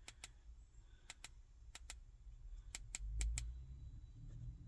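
Buttons on a 12-gang switch panel's controls clicking as they are pressed: four quick press-and-release pairs, roughly a second apart, over a faint low rumble.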